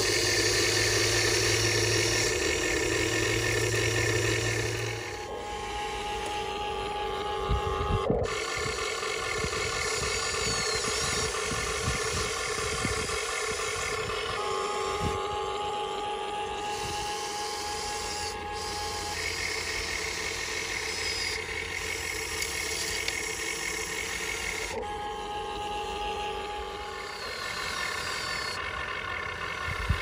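Electric motors and gearboxes of a Huina RC excavator whining, the pitch changing every few seconds as the boom, arm and bucket move. Gravel clatters into the steel bed of an RC dump truck about a third of the way in.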